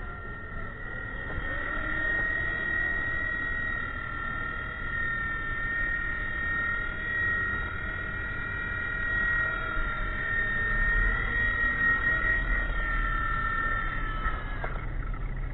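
WLtoys V911-series micro RC helicopter in flight: its small electric motor and rotors give a steady high whine on two tones that waver slightly, cutting off near the end.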